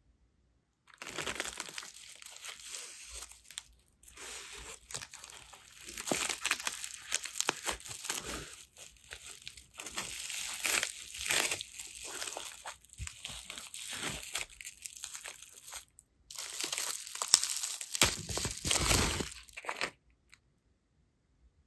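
Plastic packaging crinkling and rustling as it is handled and unwrapped, in irregular bursts with brief pauses about four and sixteen seconds in, stopping about two seconds before the end.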